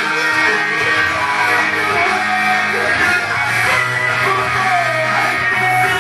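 Loud rock song with electric guitar and a singing voice.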